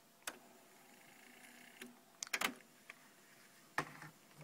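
Marantz SD8020 cassette deck transport being stopped, rewound and put into play: a click, a faint whir of the tape rewinding, a loud cluster of mechanism clicks as it stops about two and a half seconds in, then another clunk near the end as it goes into play.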